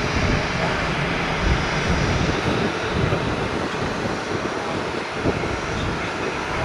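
Boeing 737 jet airliner's engines at takeoff thrust as it climbs away after liftoff: a steady broad roar of jet noise that eases slightly toward the end.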